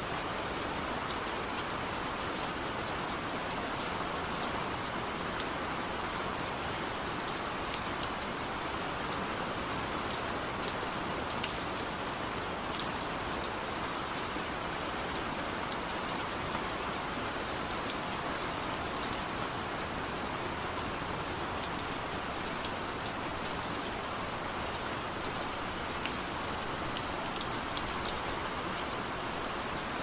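Steady rainfall, a dense even hiss with scattered drops ticking sharply throughout.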